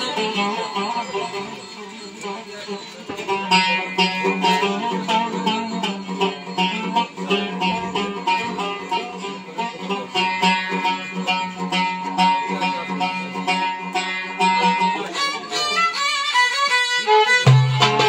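Turkish folk instrumental music: a violin and a plucked cümbüş play a melody together over light hand-drum strokes. About three and a half seconds before the end, the darbuka enters with strong, deep beats.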